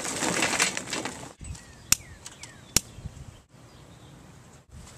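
Charcoal briquettes clattering into a metal chimney starter; the clatter cuts off abruptly about a second and a half in. Then faint bird chirps and two sharp clicks about a second apart.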